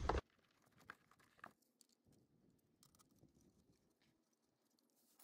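Near silence, with a few faint metallic clicks about a second in as bolts are started by hand into the NP231 transfer case housing.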